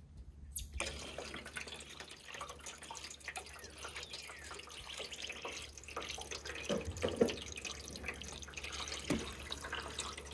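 Water from a garden hose turned on full blast, running and trickling along a metal rain gutter with small drips and splashes. It starts suddenly just under a second in.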